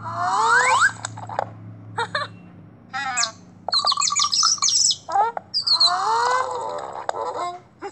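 Cartoon bird sound effect: quick chirps and tweets, with rapid rising and falling whistles and short trills, in several bursts with brief gaps.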